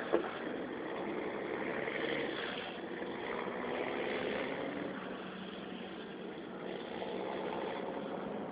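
A steady engine hum with an even hiss over it, holding at much the same level throughout.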